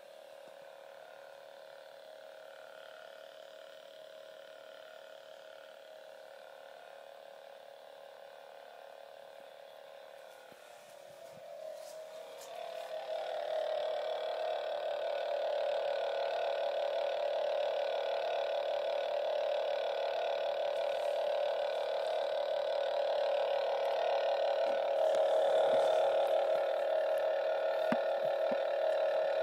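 Radio sound effect: a steady electronic tone with several overtones, like a dial tone. It is faint at first, grows louder about 11 to 14 seconds in, and then holds steady.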